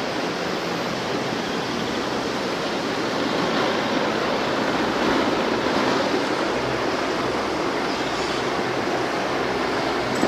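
Steady rushing noise of jet aircraft engines, swelling slightly midway.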